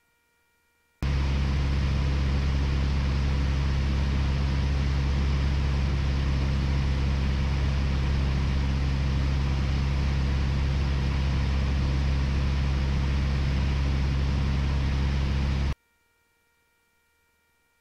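Piper Warrior's four-cylinder Lycoming engine and propeller running steadily with a broad rushing hiss, heard inside the cabin. It cuts in abruptly about a second in and cuts off just as abruptly near the end.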